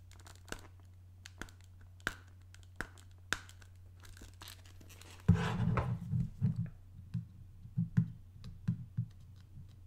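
Fingernails scratching and picking at the sticker seal on a clear plastic iPod box: small scattered clicks and scrapes. About five seconds in the handling gets louder, with knocks and rubbing of the plastic box in the hands.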